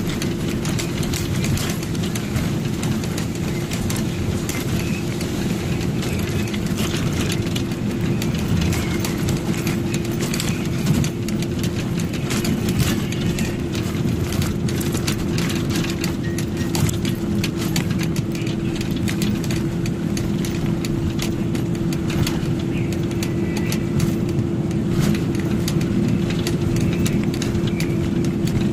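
A truck's engine running steadily on the move, heard from inside the cab: a constant drone with a steady hum and frequent light rattles.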